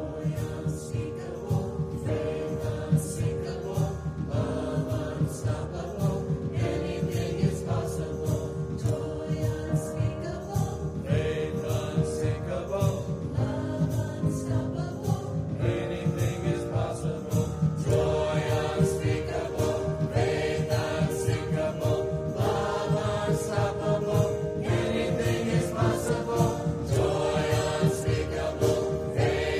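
Mixed church choir of men's and women's voices singing an anthem together, held notes changing in pitch over a pulsing accompaniment.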